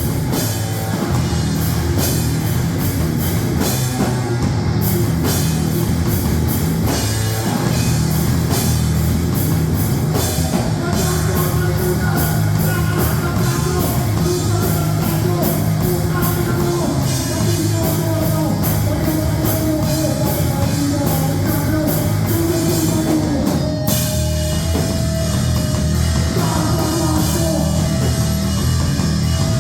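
Loud heavy rock music with a drum kit and guitar playing, running steadily throughout.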